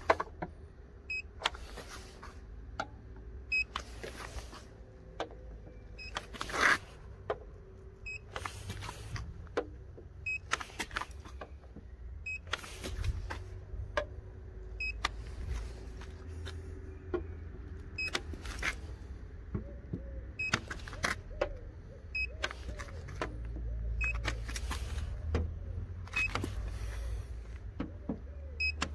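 Handheld paint thickness gauge giving short high beeps at irregular intervals as its probe is pressed against the car's painted body panels. Sharp clicks and knocks of handling come in between, over a steady low rumble.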